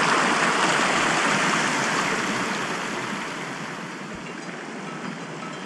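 Rushing mountain stream, a steady hiss of water that fades down over the middle of the clip and stays softer after.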